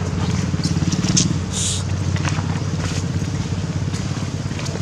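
A small engine running steadily at a low, even pulse. Over it come a few short dry crackles and a brief hiss about a second and a half in.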